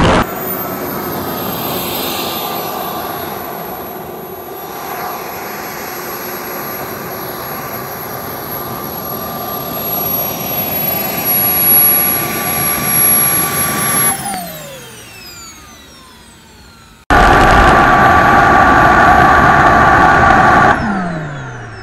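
Small turbine engine of a radio-controlled jet whining steadily at idle, then winding down with a falling pitch about 14 seconds in as it is shut off. After a sudden cut, a second, louder turbine whine runs for a few seconds and winds down the same way near the end.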